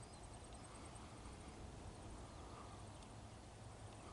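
Near silence: faint outdoor ambience with a low rumble and a few faint bird chirps.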